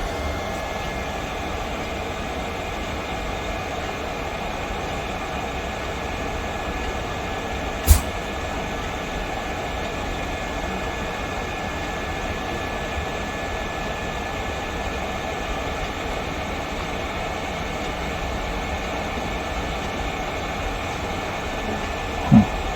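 Electric heat gun running steadily, its fan blowing hot air to shrink heat-shrink tubing, with a thin steady whine over the rush of air. A single short click about eight seconds in.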